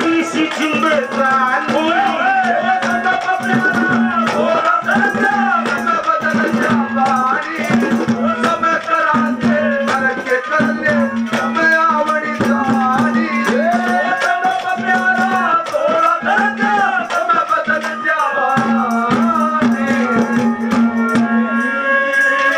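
Live ragni music: a melodic instrument plays a winding tune over a steady, repeatedly held low note, with hand-drum strokes and jingling rattle percussion.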